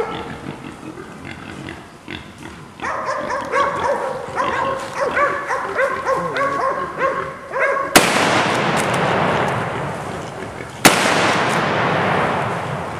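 Bay dogs barking and baying at a wild boar they have bayed up. About eight seconds in, a .44 Magnum revolver fires a sharp shot, and a second follows about three seconds later; each shot is followed by a few seconds of loud steady hissing noise.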